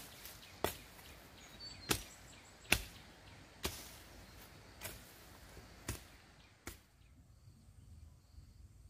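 Hoe chopping into dry, stubbly ground: about eight sharp strokes at an uneven pace of roughly one a second, stopping about seven seconds in.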